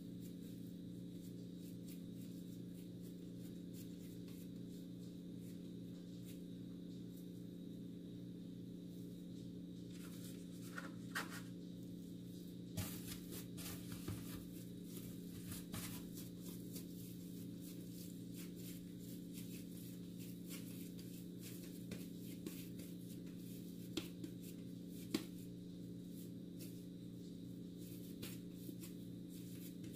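A steady low hum, with faint rustles and soft taps of hands shaping soft bread dough into balls and setting them on a paper-lined baking tray; the handling noises cluster about ten to sixteen seconds in, with a sharper tap about 25 seconds in.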